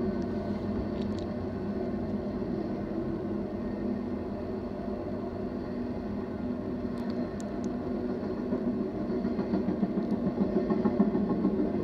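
BNSF intermodal freight train passing, a steady low rumble that grows somewhat louder near the end, with a few faint high clicks about seven seconds in.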